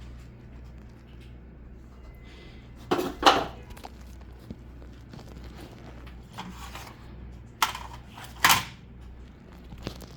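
Hard knocks and clatter, two close together about three seconds in and two more near the end, over a steady low hum.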